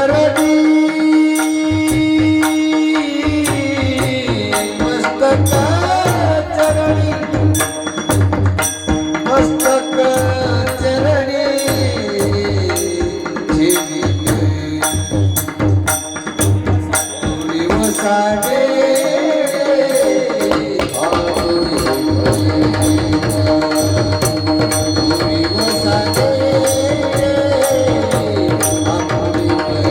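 Devotional kirtan music: a sung melody over a steady held drone, with tabla-like drumming and jingling hand cymbals keeping a quick, even beat.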